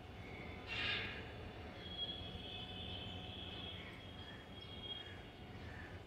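Outdoor ambience: a steady low rumble of distant traffic under faint high bird chirps and calls, with one louder call about a second in.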